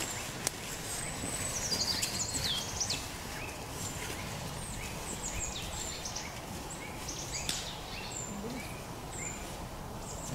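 Small birds calling: a scattered series of short, high chirps and brief falling whistles over a steady background hiss. A few crunching footsteps in dry fallen leaves in the first second or so.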